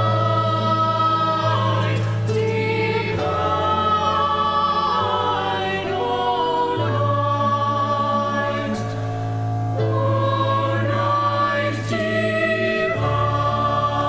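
Mixed high school choir of male and female voices singing a holiday carol, holding chords that change every second or two.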